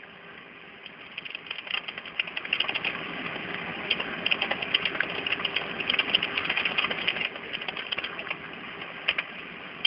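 Crackling, rustling noise over a telephone line, full of rapid small clicks, swelling a second or so in and easing off again near the end.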